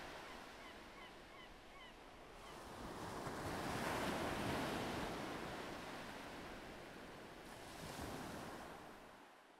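Sea waves washing on a shore, swelling about four seconds in and again near the end before fading out. A bird gives a few short calls in quick succession in the first two seconds.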